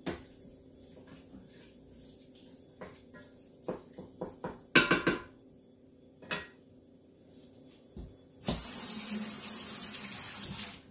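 A kitchen sink tap is turned on for about two seconds near the end, a steady rush of running water that stops abruptly. Before it come scattered knocks and clatters of kitchen handling, loudest about halfway through.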